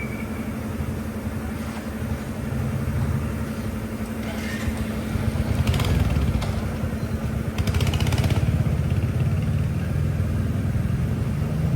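Motorcycle engine running steadily, growing louder around the middle and again near the end.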